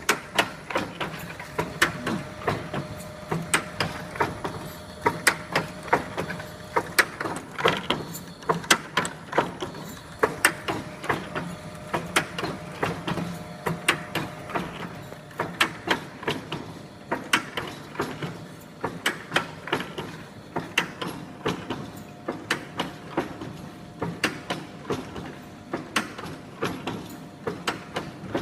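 Three-side sealing and cutting packaging machine running, clacking about twice a second in a steady cycle over a constant motor hum.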